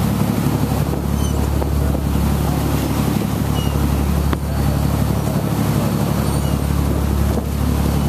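A fishing boat's engine running with a steady low hum, under the constant rush of the churning wake behind the boat.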